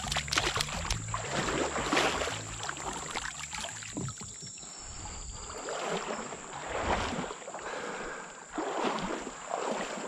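Shallow river water splashing as a wet bird is scooped out by hand, then sloshing and swishing in uneven swells as a wader steps through it.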